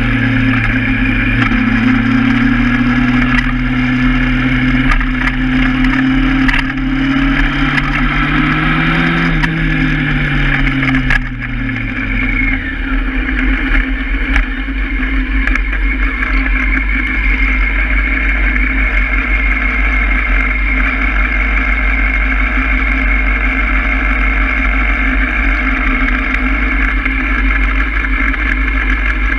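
Honda Hornet motorcycle engine riding at low speed, its pitch rising briefly about nine seconds in, then dropping as the bike slows. It settles into a steady idle at a stop, over a constant low rumble.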